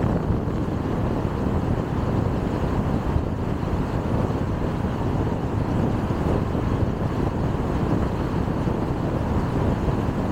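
Car driving along a road: a steady, even rumble of tyres on the road surface and the car running, with no change in pace.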